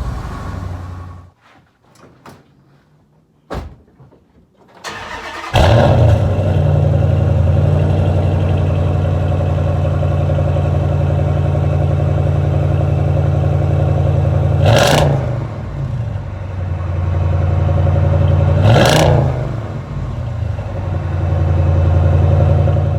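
Car engine cuts off about a second in, a few quiet seconds with scattered clicks follow, then the engine starts again and idles with a steady low exhaust note, revved briefly twice.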